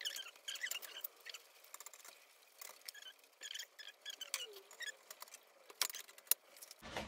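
Adhesive sticker being peeled off a black steel leg of an IKEA Vittsjö shelf frame: a run of short squeaky, crackling snatches mixed with small clicks of the metal part being handled.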